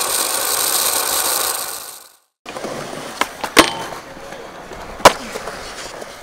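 A steady rushing noise fades out about two seconds in. After a brief gap, skateboard wheels roll on concrete. The board clacks twice as it pops onto a metal handrail and grinds along it, then lands with a loud, sharp clack about five seconds in and rolls on.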